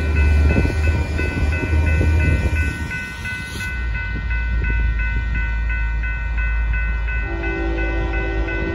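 Grade-crossing warning bell ringing steadily in a rapid repeating pattern, over a low rumble. About seven seconds in, a train horn starts sounding a steady chord.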